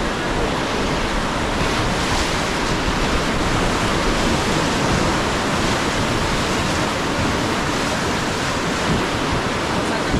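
Loud, steady rush of river water with no break.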